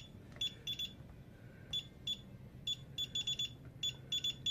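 DSC alarm keypad beeping as its keys are pressed during panel programming: about a dozen short, high beeps at irregular spacing, some coming in quick runs.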